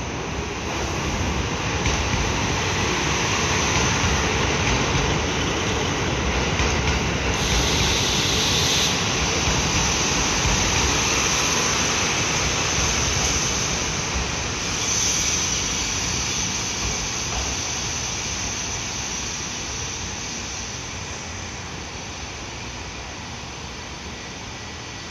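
JR Hokkaido KiHa 183 series diesel railcar train pulling into the platform, its diesel engines and wheels on the rails loud as it passes, with a brief hiss about seven seconds in. The noise fades slowly over the second half as the train moves on.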